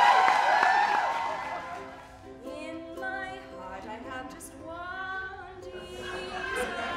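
Audience cheering and applause dying away over the first two seconds, then quiet singing in long held notes.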